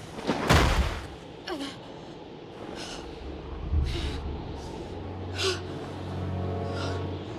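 A loud, sudden whoosh and impact in the struggle, then a young woman's short gasping breaths, repeated about six times, over a low steady drone that builds in the second half.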